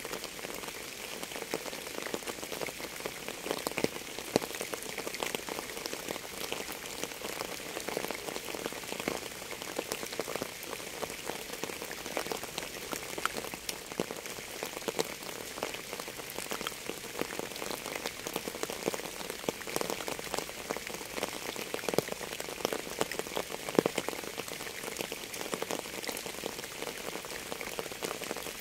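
Steady rain falling on a surface: a dense, even patter of many small drops, with a few louder single drops here and there.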